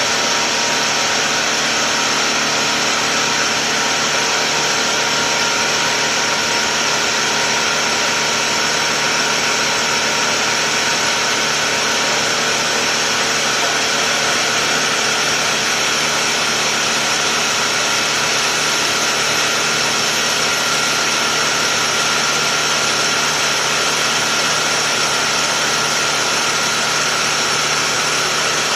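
Tuxing four-stage high-pressure air compressor running steadily while filling an air tank: an unchanging mechanical drone with a steady whine on top.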